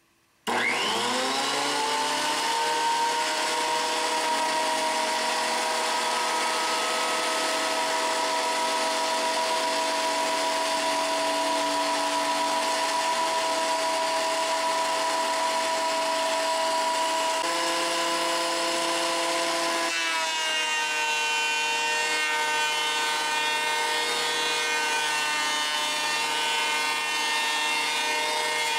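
A Powertec 12½-inch benchtop thickness planer switches on about half a second in, its motor spinning up over a second or two, then runs with a steady whine while a rough pallet board is fed through and planed. About two-thirds of the way in, the tone shifts slightly lower.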